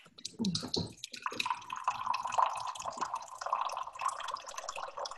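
Water running steadily into a container as someone fills it, starting about a second in after a few small handling sounds.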